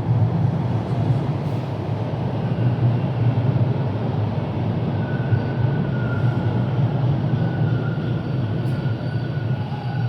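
Rail transit train running with a steady low rumble, and a faint, thin wheel squeal coming in about halfway through.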